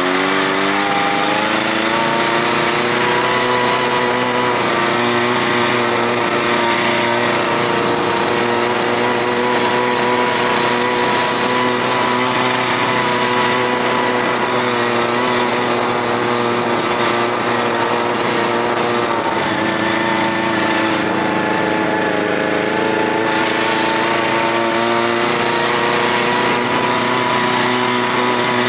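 Buran snowmobile's two-stroke engine running steadily under way. Its pitch climbs a little at the start, sags about two-thirds of the way through, then picks up again.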